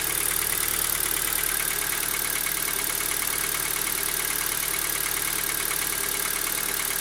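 Kia Ceed's 1.6-litre petrol engine idling warm, quiet apart from a faint, steady metallic ticking knock. The owner believes such a knock should not be there; the dealer found no cause.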